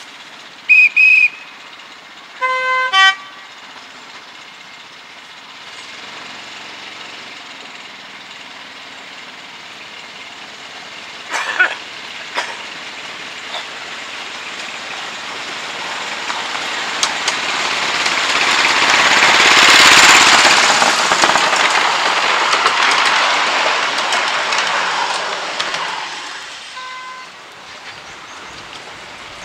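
Petrol-engined miniature railway locomotive, a model of a Class 35 Hymek, sounds two short horn toots. It then runs past with its passenger carriages, and its engine and wheel noise swells to a peak about twenty seconds in and fades away.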